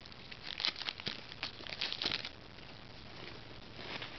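Foil trading-card pack wrappers and cards being handled: a quick run of crinkles and rustles over the first two seconds or so, then quieter.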